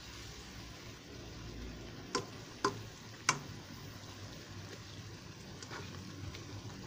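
Shrimp, squash and string beans in coconut milk simmering and sizzling gently in a wok while a plastic spatula stirs them. Three sharp clicks of the spatula against the wok near the middle.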